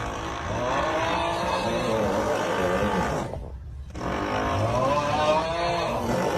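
A person snoring: two long snores with a wavering pitch, the second starting about four seconds in after a brief pause.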